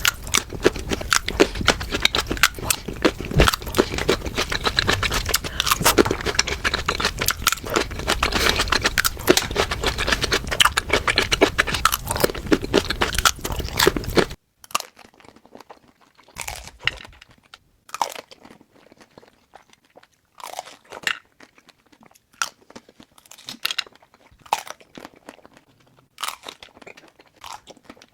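Close-miked eating of chocolate-covered fruit: dense, continuous crunching and chewing, which cuts off abruptly about halfway through. After that come separate short crunchy bites and chews with quiet gaps between them.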